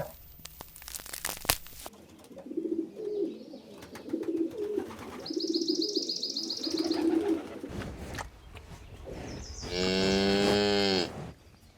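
Farm animal calls: about four short, low, soft calls in a row, a quick high chirping trill over them, then one loud long call about ten seconds in, like a calf's moo or a goat's bleat.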